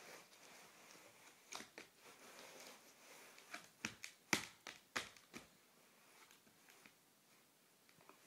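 A baby's hand patting and slapping a cardboard board book: a run of about eight sharp taps bunched in the middle, the loudest about halfway through, with no song playing from the book.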